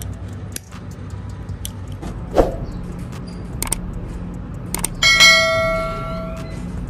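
A bell 'ding' notification sound effect from a subscribe-button animation, starting suddenly about five seconds in and ringing away over about a second and a half, just after a short click. Under it a steady low hum with scattered small clicks and a single thump near the middle.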